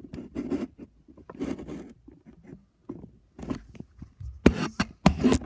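Irregular scraping, rustling and knocking close to the microphone as someone moves among stored boxes in an attic, with a few sharp clicks, the loudest about four and a half and five seconds in.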